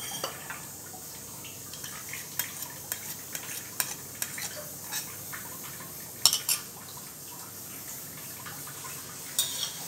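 Scattered clinks and taps of a steel spoon against a ceramic bowl and a steel bowl as beaten egg white is tipped and scraped from one into the other, with a sharp clink about six seconds in and a few more near the end.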